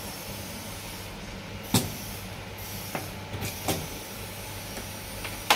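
A few sharp plastic clicks and knocks as sensor-wire connectors are handled and plugged into the test panel's sockets, over a steady low hum.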